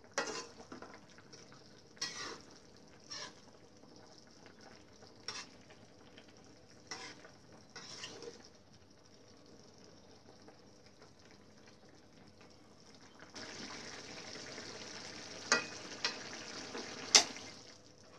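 A spatula scraping and stirring chicken livers and gizzards in a wok of simmering sauce, with short scrapes every second or two. About 13 seconds in, a steady sizzling starts as the sauce reduces, with a few sharp clinks of the spatula against the wok, the loudest near the end.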